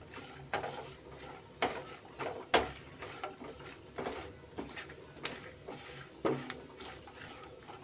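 Silicone spatula stirring and scraping coconut slices and almond slivers in ghee in a nonstick kadai, with uneven taps and scrapes about once or twice a second.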